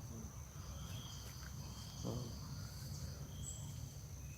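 Faint outdoor ambience of insects, crickets or cicadas, keeping up one steady high-pitched trill, with a few short faint calls above a low rumble.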